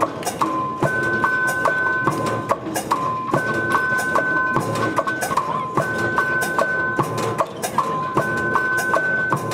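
Omele machine's rotating disc triggering its percussion instruments in a repeating loop: wood-block-like knocks several times a second, with two ringing tones that switch on and off. The whole pattern repeats about every two and a half seconds.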